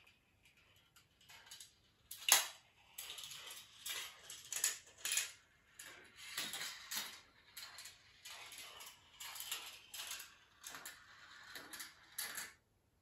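Marbles rolling and clattering through a GraviTrax marble run: irregular rattling runs broken by sharp clicks, the loudest about two seconds in. It stops shortly before the end.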